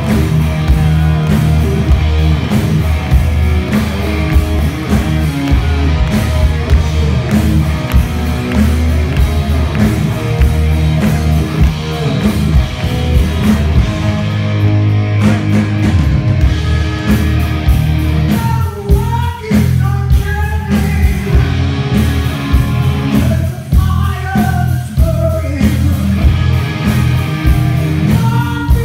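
Hard rock band playing live through a big stage PA, heard from the crowd: distorted electric guitars, bass and drums, with a male lead singer.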